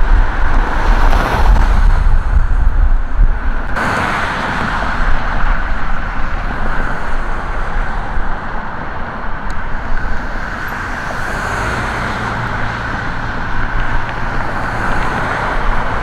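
Road traffic on a multi-lane boulevard: cars passing with steady tyre and engine noise, with a heavy low rumble in the first few seconds. A steady low engine drone comes in about two-thirds of the way through.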